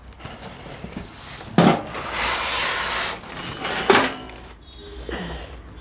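A cardboard carton being opened and a plastic-wrapped oven with foam packing pieces being pulled out of it. There is a knock, then a long rustling scrape, a second knock, and near the end a squeaky rubbing of the foam packing.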